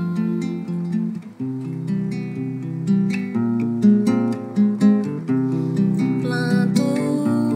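Acoustic guitar playing an instrumental passage of plucked chords and melody notes, with a brief break about a second in before the next chord.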